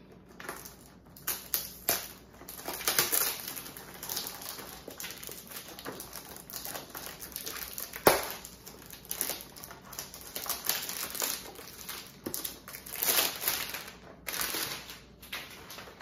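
Plastic shrink-wrap being torn and peeled off a cardboard box of coffee pods: irregular crinkling and crackling, with one sharp snap about eight seconds in.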